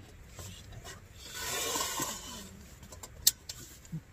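Backpacking gas stove hissing briefly, then one sharp igniter click near the end: the stove is failing to light, and its user suspects it is broken.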